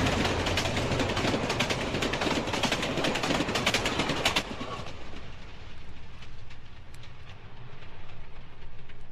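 Railway train running after its whistle has stopped: a dense, rapid clatter of wheels on the track over a steady rumble, dropping to a quieter, duller rumble about four and a half seconds in.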